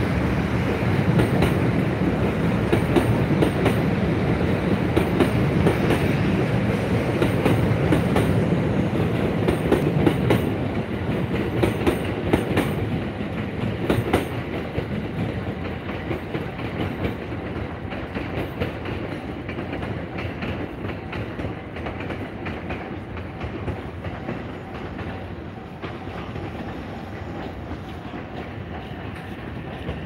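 A train running along the tracks, its wheels clacking over rail joints; the sound is loudest in the first half and fades away after about fourteen seconds.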